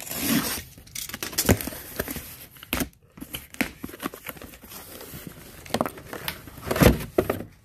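Plastic packaging crinkling and tearing as an item is unwrapped by hand, in an irregular run of rustles with a few sharper crackles.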